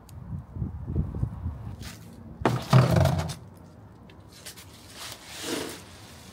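Dry leaves rustling and crackling as the plastic jaws of a Darlac Grab n Lift leaf grabber gather and scoop them. There is a loud rustle about two and a half seconds in and a softer one near the end, after low thumping at the start.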